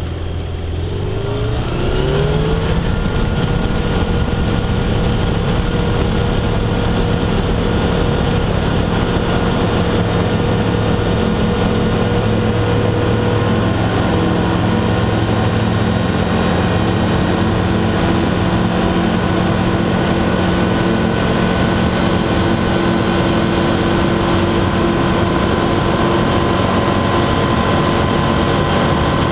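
Light aircraft engine and propeller heard from inside the cockpit, throttled up for a takeoff roll. The pitch rises about a second or two in and then holds steady at takeoff power through the ground run and climb-out.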